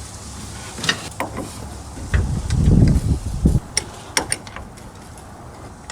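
Scattered sharp metallic clicks and clanks of hand tools and parts being handled on a pickup truck, with a louder low rumbling thump lasting about a second and a half near the middle.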